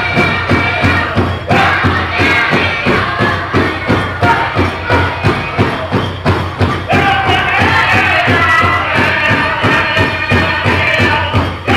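Powwow drum group singing a chicken dance contest song: high-pitched men's voices over a fast, steady beat on a big drum. A new high phrase comes in about seven seconds in.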